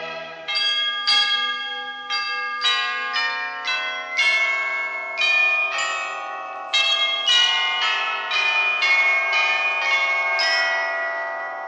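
A carol melody struck out note by note on bells, about two notes a second, each note ringing on over a held chord underneath.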